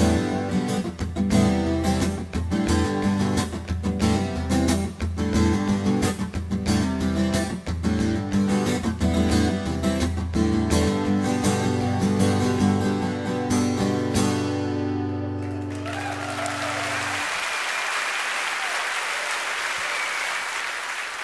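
Acoustic guitar strumming the closing chords of a song, the last chord ringing out. An audience starts applauding about three-quarters of the way through.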